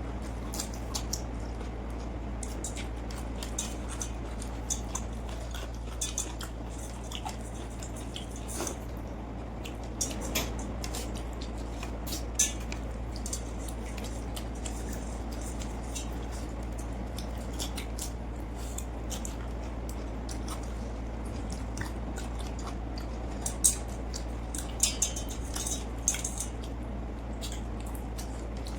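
Eating sounds from a meal of watered rice and fish fry: scattered short clicks and wet taps against a plate, with a few sharper clicks about 24 to 26 seconds in.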